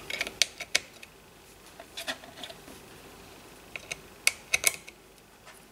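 Small laser-cut MDF pieces clicking and tapping against the model as they are pushed into slots. The clicks are scattered: a few near the start, one about two seconds in, and a cluster around four seconds in.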